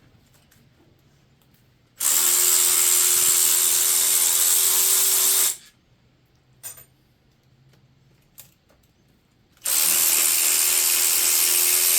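A power tool runs at a steady speed in two bursts of about three and a half seconds each, starting and stopping sharply, with a few faint clicks between them. As the second burst ends, its motor pitch falls away.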